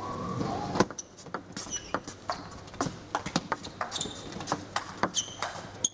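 A table tennis rally: the ball clicking off the bats and the table in a quick, irregular series. Short high squeaks come through between the clicks, from the players' shoes on the court floor.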